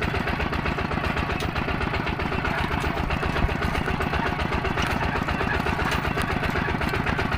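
Engine running steadily at a constant speed, with a fast, even chug.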